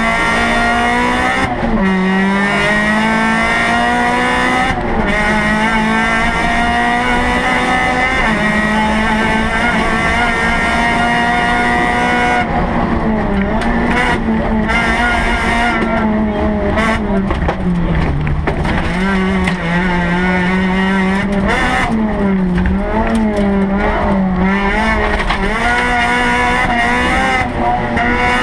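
Rally car engine heard from inside the cockpit at full effort: it climbs through the gears, the pitch rising and then dropping at upshifts about 1.5, 5 and 8 seconds in, and is held high before rising and falling repeatedly through a run of corners, with a deeper dip from braking around the middle.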